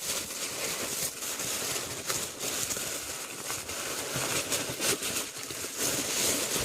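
Wrapping rustling and crinkling as a shoe is unwrapped by hand, with scattered small crackles and handling noise.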